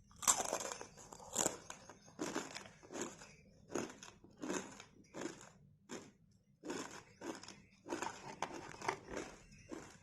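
Crisp fried murukku being bitten and chewed close to the microphone: a run of sharp crunches about two a second, the loudest on the bite at the very start.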